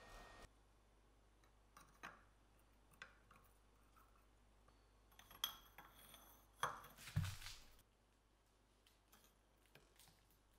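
Small metal parts and tools being handled: scattered light clicks and metallic clinks, with a faintly ringing clink about five seconds in and a duller knock a second or two later.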